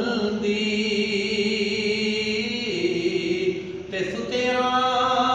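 A man's solo voice singing a Punjabi Sufi devotional song, drawing out one long held note that steps down in pitch midway, then starting a new phrase near the end.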